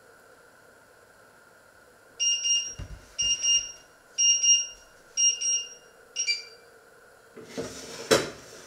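Electronic alarm beeper going off: five short high-pitched groups of rapid pips, about one a second. Near the end a rustle and a sharp click.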